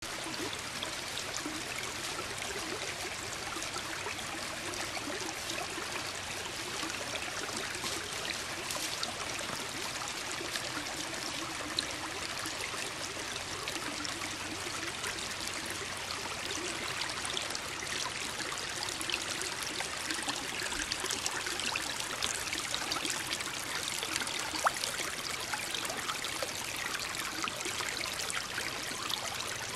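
Shallow creek at low flow trickling steadily over gravel and stones. Two brief sharp ticks stand out, one about 12 seconds in and a slightly louder one near 25 seconds.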